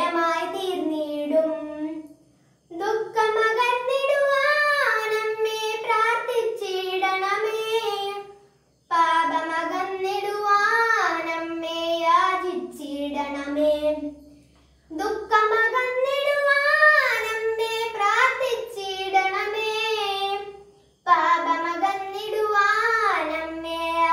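A boy singing a Malayalam Marian hymn unaccompanied, in phrases broken by four short breaths.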